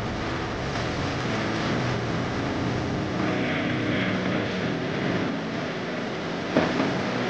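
A steady mechanical drone with a low hum underneath, and one light knock near the end.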